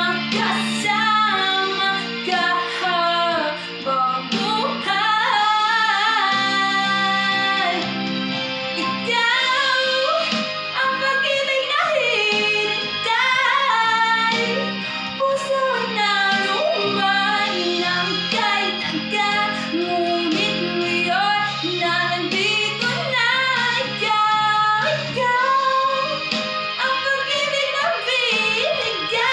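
Young man singing solo in a high voice, with sliding runs and long held notes, over a backing track of sustained chords.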